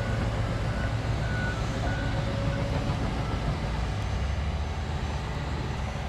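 Excavator's diesel engine running steadily with a low rumble while it digs, with a few short faint high tones in the first couple of seconds.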